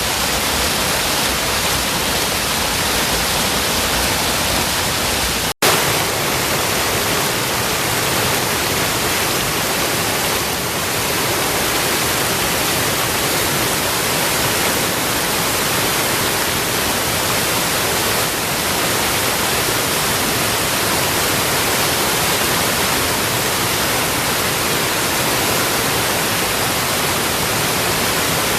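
A small stream spilling over a drop like a little waterfall, a loud steady rush of water. It cuts out for an instant about five and a half seconds in.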